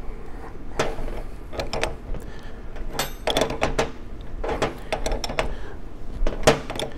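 Socket ratchet clicking in short bursts, a cluster of clicks about every second, as it tightens the screw of a nut splitter to drive its chisel into a loose steel nut.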